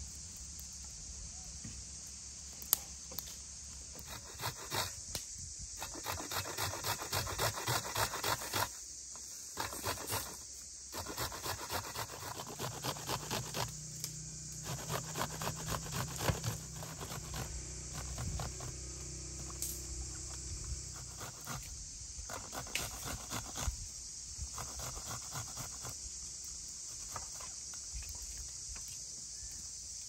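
Onion being grated on a stainless-steel box grater: runs of quick rasping strokes, about four a second, that stop and start several times.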